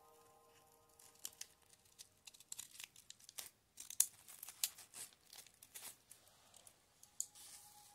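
Wavy-edge craft scissors cutting along the edge of crepe paper: irregular crisp snips with crinkling of the paper, starting about a second in.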